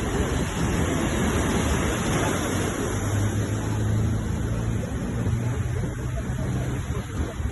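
Sea surf: a steady rush of waves breaking and washing, with a low hum joining for a few seconds in the middle.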